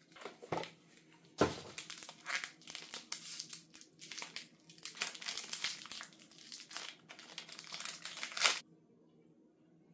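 Oreo biscuit packaging being torn open by hand, its plastic wrapper crinkling and crackling continuously with a few sharper snaps. It stops suddenly near the end, right after the loudest snap.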